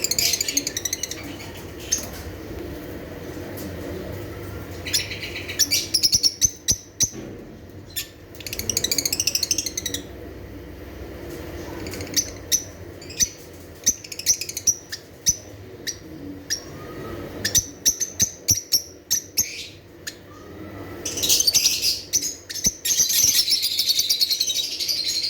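Lovebirds chirping and chattering in bursts of high-pitched calls, with sharp clicks in between; the chatter grows denser and louder near the end.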